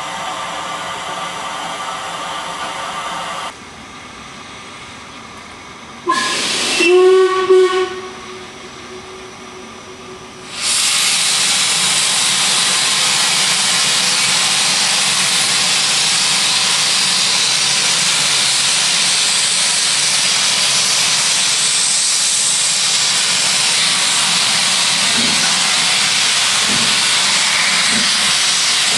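Stanier Class 5 4-6-0 steam locomotive sounding a short whistle about six seconds in. From about ten seconds in, steam blasts out at track level in a loud, steady hiss.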